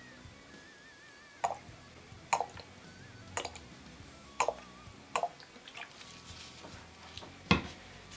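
Fragrance oil dripping drop by drop into a container of glycerin and oil: six sharp, separate plinks about a second apart, the loudest near the end.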